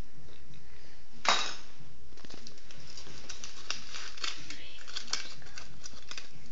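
A sharp knock about a second in, followed by a quick, irregular run of light clicks and taps, like handling noise close to the microphone.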